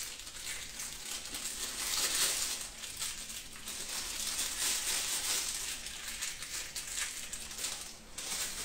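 Plastic piping bag crinkling and rustling in irregular swells as it is squeezed and worked by hand to smear melted chocolate around its inside walls.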